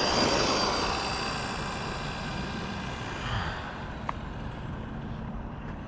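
Arrma Granite Mega RC monster truck's brushed 550 motor whining at full throttle on a NiMH battery as the truck speeds away on asphalt, the sound fading as it draws off.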